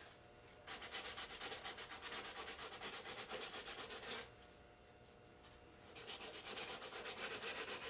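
Sandpaper rubbed by hand in quick back-and-forth strokes over dried modelling putty on a plastic model kit's saucer edge, sanding the filled seam down. Two runs of strokes with a pause of about two seconds between them.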